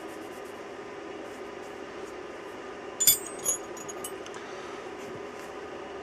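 Small metal hand tools clinking together twice in quick succession, a bright ringing chink about halfway through, with faint handling ticks around it.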